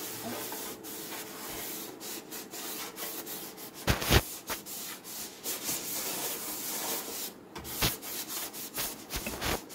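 A cloth scrubbing the metal interior of a microwave oven: steady rubbing and scraping, with a few louder knocks about four seconds in and twice near the end.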